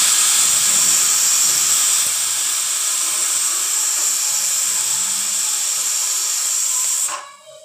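Pressure cooker whistle on the gas: a loud, steady, high hiss of steam escaping, which cuts off suddenly after about seven seconds.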